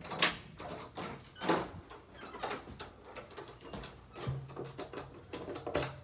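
Key unlocking a commercial lever-handle door lock: keys jingle and a series of sharp clicks and knocks, about one a second, as the key is worked in the cylinder. Near the end the latch clicks as the door opens.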